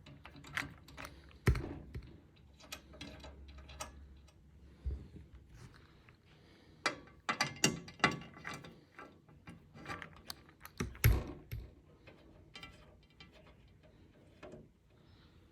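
Hands handling a PC case and its parts: irregular clicks, taps and rattles, with sharper knocks about a second and a half in, around eight seconds and around eleven seconds.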